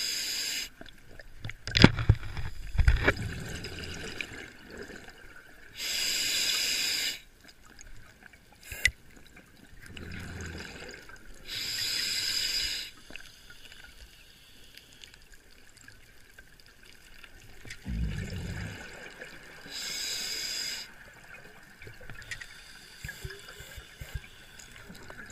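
Scuba diver breathing through a regulator: a hissing inhale roughly every six to seven seconds, with a low rumbling burst of exhaled bubbles between inhales.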